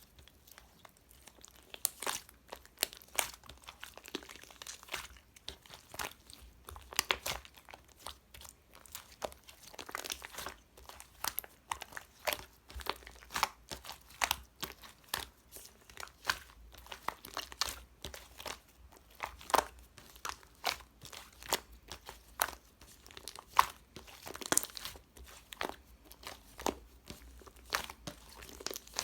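Hands kneading, squeezing and stretching a 'blueberry bread' slime, giving a run of irregular crackling pops and crunches, several a second.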